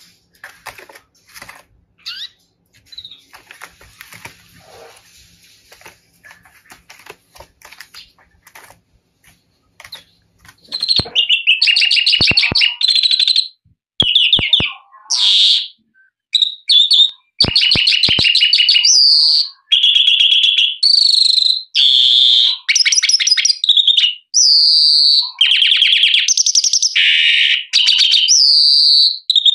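Oriental greenfinch singing: after a quiet start with faint clicks and rustling, about a third of the way in it breaks into loud song, phrase after phrase of rapid trilled and twittering notes with short gaps between them.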